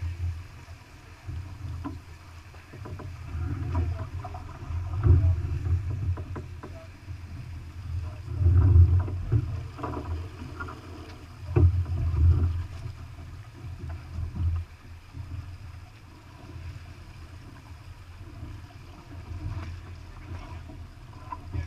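Wind and water noise aboard a sailboat under sail: a low rumble of wind on the microphone and water along the hull that swells and fades in uneven gusts several times.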